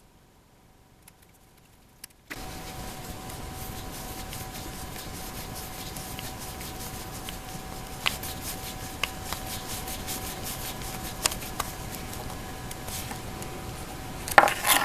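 A screwdriver turning a small machine screw into an aluminum limit-switch bracket: scattered small metal clicks, then a louder clatter near the end. Under it is a steady hum with a faint high tone, which starts about two seconds in.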